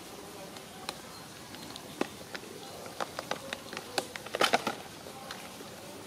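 Macaques eating mango: a run of short wet smacks and clicks from biting and chewing the fruit, getting busier and loudest in a quick cluster about four and a half seconds in, over a faint steady hiss.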